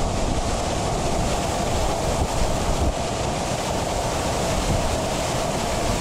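Waterfall pouring into its pool, heard from close below: a steady, loud rush of falling water.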